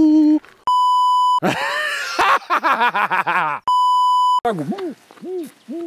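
Two short censor bleeps, each a steady, clean, high-pitched electronic beep lasting under a second, about three seconds apart. A man's loud, wavering voice fills the gap between them and follows the second.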